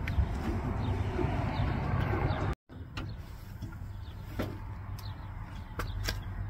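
A steady low rumble that drops out for a moment about two and a half seconds in, followed by a few light clicks and taps of hands working the metal fittings of an RV propane regulator.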